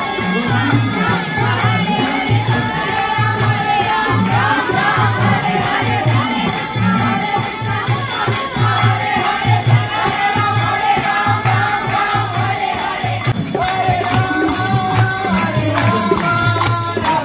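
Devotional kirtan music: singing over a steady, even drum beat, with high jingling percussion throughout.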